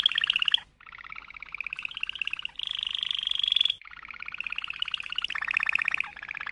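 Domestic canary singing in long rapid rolling trills. Each phrase lasts a second or two before it switches to another, one of them higher and thinner a little before the middle, and there are brief breaks between some phrases.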